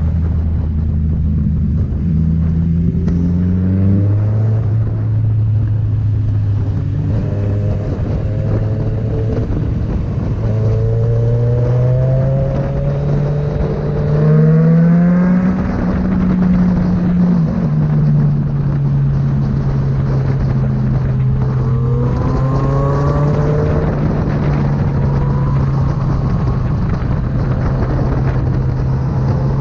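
Kawasaki Z900's inline-four engine with a Firetong aftermarket exhaust, running under way. Its pitch climbs in steps through the first half, peaks and gets louder about halfway through, then drops a little later and holds steady to the end.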